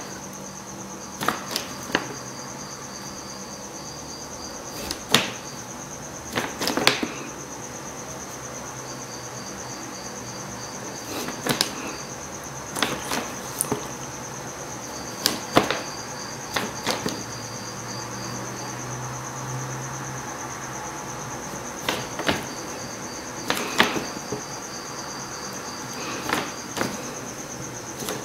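Scattered light taps and clicks every few seconds, from handling the brush and paint dish during nail painting, over a steady high-pitched trill with a second pulsing high tone that comes and goes.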